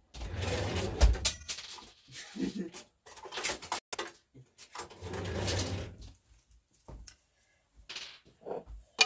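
Metal cutlery clattering and clinking in a kitchen drawer as it is opened and rummaged through, with a sharp knock about a second in and a few more bursts of rattling.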